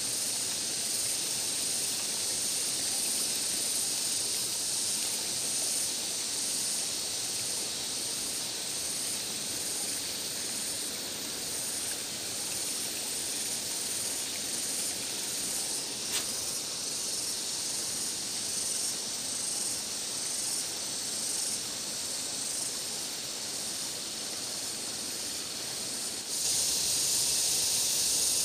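Steady high-pitched insect drone with a faint regular pulsing. A single sharp click comes about halfway through, and the drone grows louder and fuller near the end.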